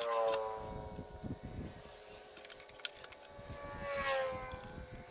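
The small high-speed motor of a rotary tool used as a lathe tool post grinder, whining down in pitch as it slows right at the start. About four seconds in it whines up and slows down again, with a few light metallic clicks in between.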